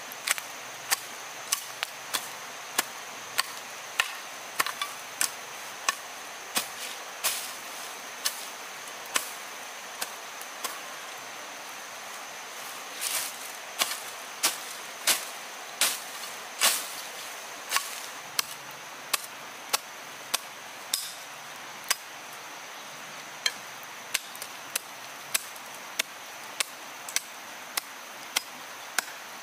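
Hand hoe chopping into grassy soil: repeated sharp strikes, mostly about half a second to a second apart with a few short pauses.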